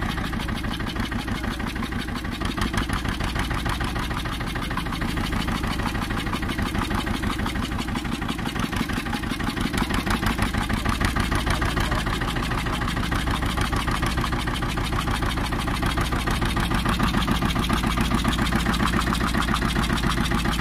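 A fishing boat's engine running steadily at low speed with an even, rapid chug.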